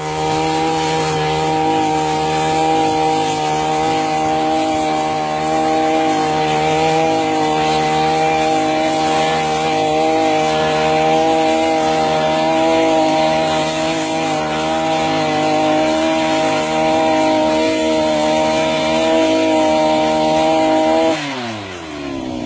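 Brush cutter engine running steadily at high speed, driving a weeding attachment through the soil. Near the end its pitch falls quickly as the engine slows to a low idle.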